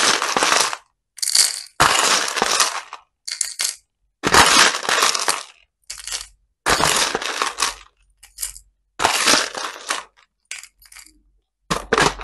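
Small plastic beads and faux pearls rattling and clattering as a metal spoon scoops them out of a plastic tub and pours them into a plastic toy cup. The sound comes in a string of separate scoops and pours, about one a second, with dead silence between them.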